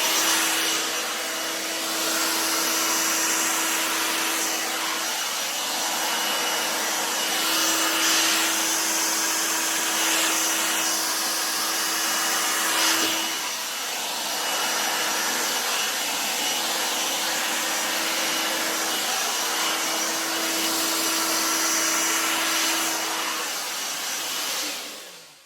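Hairdryer blowing steadily: a rushing stream of air with a steady motor hum that breaks briefly a few times and stops near the end.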